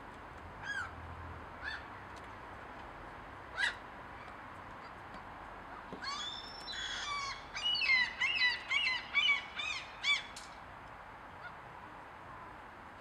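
Eurasian magpie calling: a few single calls, then a quick run of harsh, rapidly repeated calls from about six to ten seconds in.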